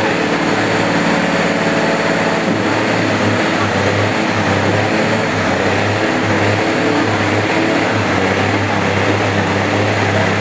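Kenworth truck's diesel engine running hard and steady under full load as it pulls the weight sled.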